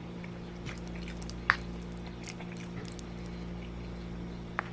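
A person quietly chewing a mouthful of soft pasta and cauliflower, with two light clicks, one about a second and a half in and one near the end, over a steady low hum.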